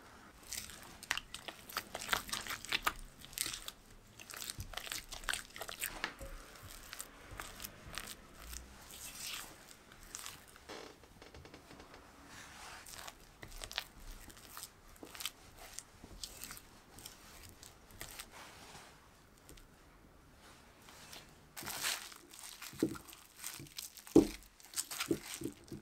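A silicone spatula stirs and scrapes a thick almond cream batter in a glass bowl, giving a run of soft wet scraping and squishing strokes. Near the end, plastic cling film crinkles as it is pulled over the cream and pressed down by hand, with one sharp knock.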